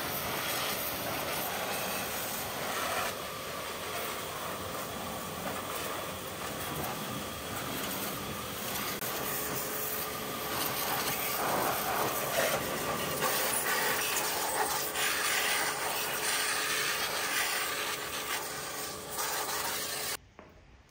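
Pressure washer running, its jet hissing and spattering onto the rusty metal of a motorcycle's engine and frame, with a steady whine from the washer's motor underneath. The sound stops abruptly near the end.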